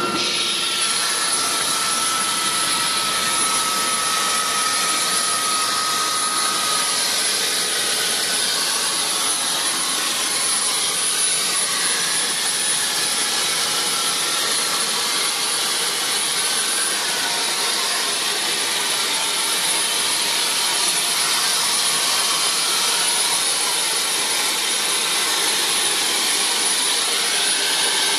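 Tour helicopter's turbine engine and rotor running on the landing pad, heard from inside the cabin: a steady turbine whine over rushing noise. A fainter whine slides slightly lower over the first several seconds.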